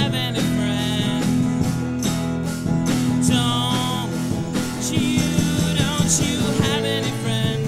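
Live rock band playing a song: a male lead singer with strummed acoustic guitar, electric guitar, bass guitar and drums.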